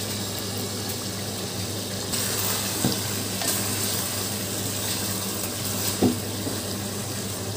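Chicken and potato masala sizzling in a metal pot while being stirred with a spoon, with two light knocks of the spoon against the pot about 3 and 6 seconds in. The sound is the meat and potatoes being sautéed in their spices before water is added. A steady low hum runs underneath.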